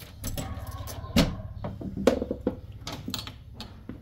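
A key turning in a front door's cylinder lock and the door being unlocked and pushed open: a run of metallic clicks and knocks, the loudest about a second in.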